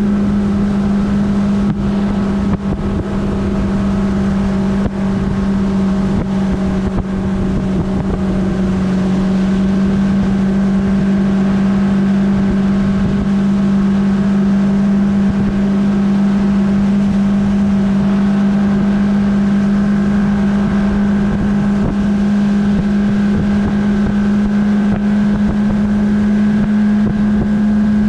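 A 1984 Johnson 120 V4 two-stroke outboard runs at a steady, even speed, driving the bass boat under way. It holds one engine note the whole time and sounds smooth.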